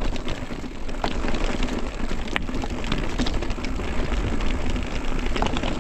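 Hardtail mountain bike riding over rough trail of roots and flint stones: tyres crunching, with frequent sharp clicks and rattles from the bike over a steady low rumble.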